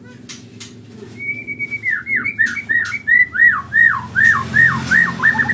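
White-rumped shama singing: a few sharp clicks, then a held whistle and a fast run of about a dozen down-slurred whistles, each falling in pitch, roughly three a second.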